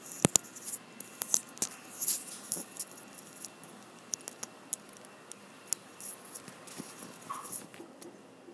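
Bubbles crackling and popping on the surface of a film-processing tank in a dip-and-dunk processor, the froth from the machine's gas-burst agitation. A dense flurry of sharp pops and small splashes in the first couple of seconds thins to scattered pops.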